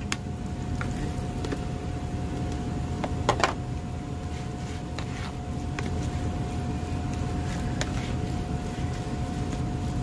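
Steady low mechanical hum with a faint constant tone, under soft scattered clicks and scrapes as diced raw beef is tipped into a plastic bowl and stirred with a plastic spoon. The loudest scrape comes about three and a half seconds in.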